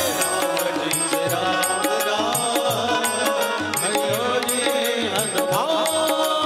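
Instrumental passage of a Hindi devotional bhajan: a melody with gliding, bending notes over a steady beat of hand drums and bass.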